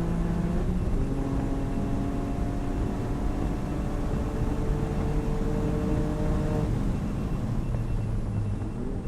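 Toyota GR Yaris's turbocharged 1.6-litre three-cylinder engine under load at high revs, its pitch climbing slowly as the car accelerates. About seven seconds in the revs drop away as the driver lifts off, and near the end the pitch rises again.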